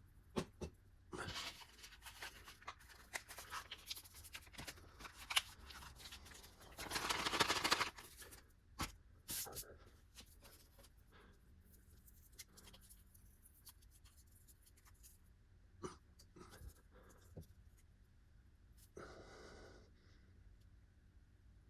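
Faint handling noises from plastic ration packaging: light taps and clicks with bursts of rustling, the longest about seven seconds in and a shorter one near the end.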